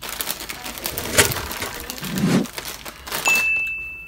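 Crinkling and rustling of a Flamin' Hot Cheetos snack bag as the chips are shaken out. About three seconds in, a single steady high electronic tone, a sound effect from a subscribe-button animation, comes in and holds for over a second.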